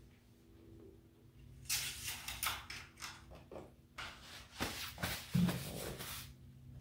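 Shop towel rubbing and swishing over the engine-bay plastics and bodywork, in a run of rough strokes starting about two seconds in and stopping near the end. A low steady hum runs underneath.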